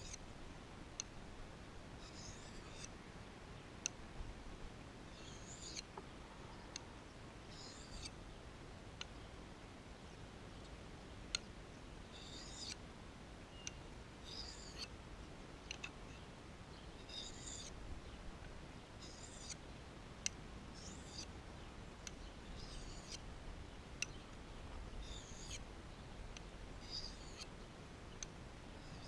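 Scandi-grind knife edge being drawn along a small hand-held sharpening bar: a faint, short, high scraping swish about every two seconds, one per stroke, with light clicks between strokes as the blade touches the bar.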